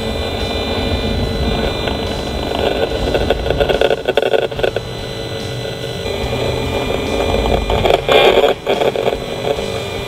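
Vehicles driving past on the road outside a parked car, with a steady engine-like hum and two louder passes, one a little after three seconds in and one about eight seconds in.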